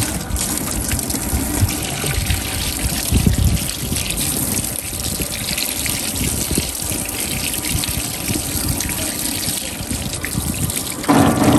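Water running steadily from a faucet and splashing over fish being rinsed by hand at a fish-cleaning sink. The sound grows louder about a second before the end.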